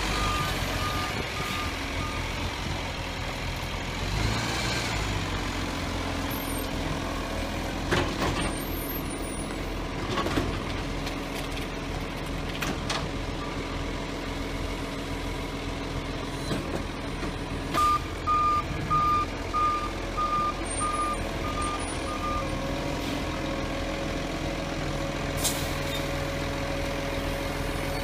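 Side-loader garbage truck's diesel engine running steadily, with its reversing alarm beeping in two runs of evenly spaced beeps, one at the start and about seven more a little past the middle. A few brief sharp sounds break in over the engine.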